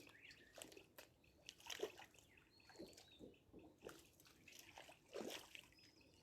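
Faint, irregular splashing and sloshing of pond water, with a few louder splashes about two, three and five seconds in.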